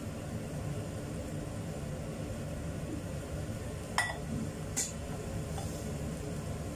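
Spiced semur sauce boiling in a stainless-steel wok, a steady low bubbling, with two sharp clinks about four and five seconds in.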